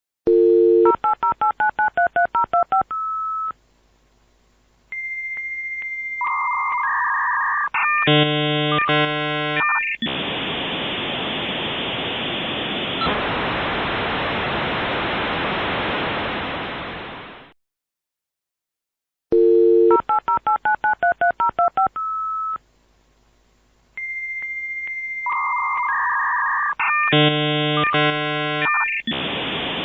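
Dial-up modem connecting: a dial tone, a quick run of about a dozen touch-tone dialing beeps, a high steady answer tone, warbling handshake tones, then a long hiss of noise that fades away. After a short silence the whole sequence starts again about 19 seconds in.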